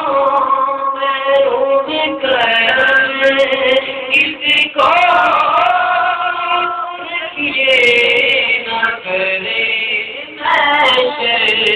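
A young man's voice sings an Urdu naat (a devotional poem in praise of the Prophet) with no instruments, holding long notes and gliding between pitches, with short breaks for breath.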